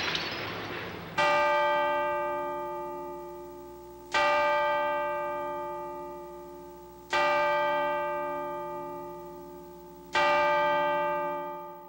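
A large bell tolling slowly, four strokes about three seconds apart, each ringing and dying away before the next.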